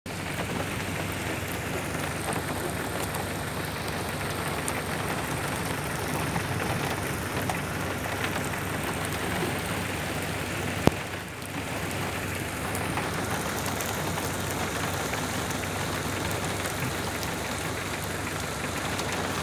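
Steady rain falling, with one sharp click a little past halfway.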